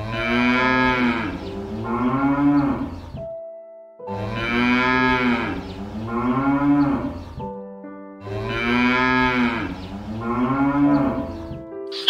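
Cattle mooing: three long moos, each about three seconds, the pitch rising and then falling. Faint background music with held notes plays in the gaps.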